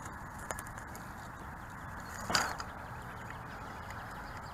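Dry grass rustling and crackling as a hand rummages through a clump, with one louder, brief rustle a little over two seconds in, over a steady hiss.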